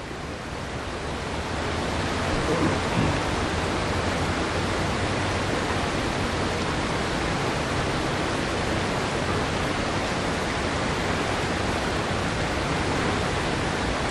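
Fast creek water rushing through rapids, a steady, even rush that builds over the first couple of seconds.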